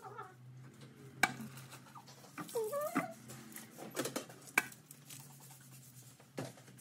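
Barber's tools being handled: about five sharp light clicks and taps spread out, over a steady low hum, with a short wavering squeak-like sound near the middle.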